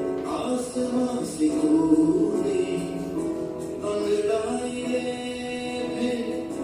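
A song playing: sung voices over instrumental accompaniment, with held notes that change every second or so.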